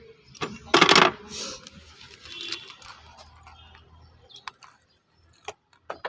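Small metal parts, the removed diesel glow plugs, clinking and rattling as they are handled: a loud clatter about a second in, then lighter jangling and a few sharp clicks near the end.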